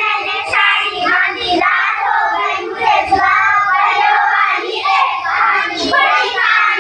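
A group of young children singing a morning assembly prayer together, their voices in unison.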